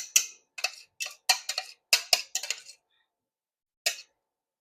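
Cooking utensil clinking and knocking against a pan in a quick run of about ten strokes, then once more near the end, as eggs and sausage are stirred.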